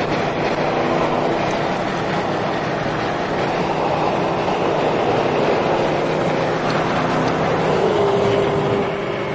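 A car driving, with steady road and engine noise. The engine tone drops in pitch about eight seconds in.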